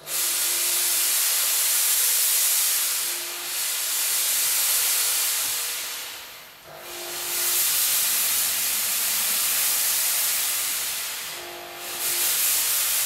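Smoke machine hissing loudly as it blows out a steady jet of smoke, with the hiss dipping briefly three times, most deeply around the middle.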